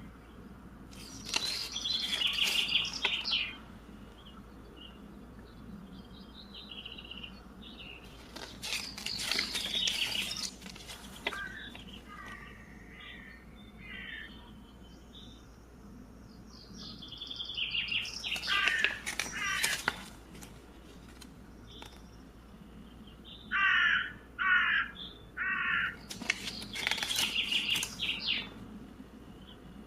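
Birds calling in several separate bouts, with a crow cawing three times in quick succession near the end.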